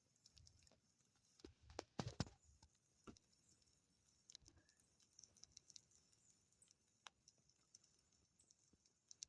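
Faint campfire crackling: irregular small pops and snaps of burning wood, with a few stronger cracks about two seconds in.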